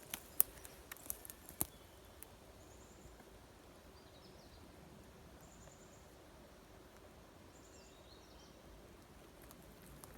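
Quiet outdoor ambience with several sharp clicks in the first second and a half, then faint high chirps now and then.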